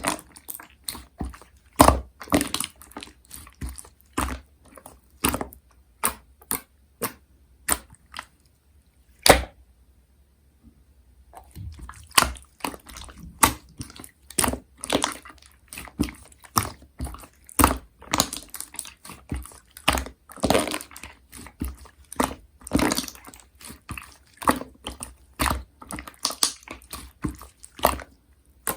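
Slime being squished and poked by hand: a run of sticky clicks and wet pops, with a pause of about two seconds a third of the way in, then denser crackling.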